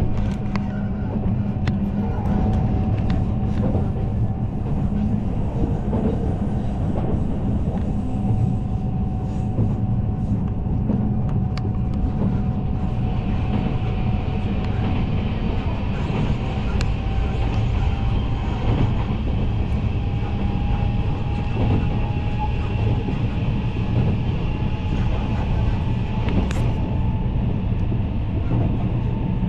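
A train running on the rails with a steady rumble and scattered faint clicks, heard from on board. A thin whine rises slowly in pitch over the second half.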